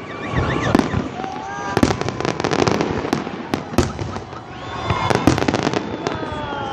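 Fireworks display: a rapid, irregular string of bangs and crackles as aerial shells burst.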